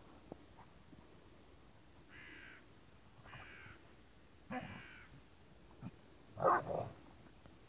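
A crow cawing three times, about a second apart, then a louder, short dog vocalisation near the end as the dogs wrestle in the snow.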